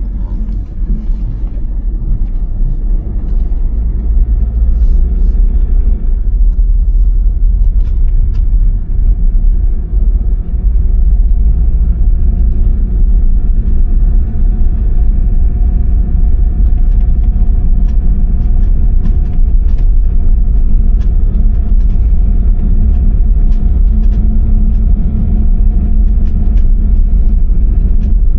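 A motor vehicle running: a steady, loud low rumble that builds over the first few seconds, with a faint steady hum above it.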